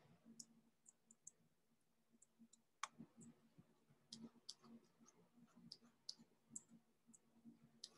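Faint, irregular clicks of a computer mouse, one louder about three seconds in, over a faint low hum.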